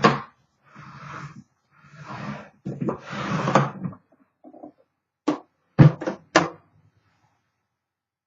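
The typewriter's carrying case being handled: a few seconds of scraping and rubbing, then four sharp clicks and knocks from its latches and lid.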